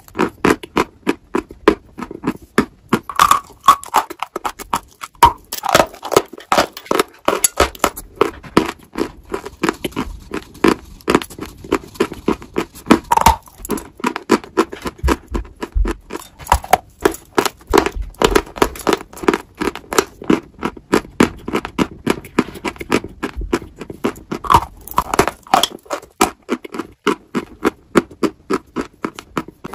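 Close-miked biting and chewing of a dry, powdery white chalky block: dense, crisp crunches, several a second, in short runs throughout.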